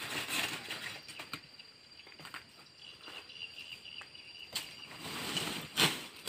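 Lumps of mangrove charcoal knocking and clattering as they are handled and packed by hand into a sack: a few separate knocks, the loudest near the end.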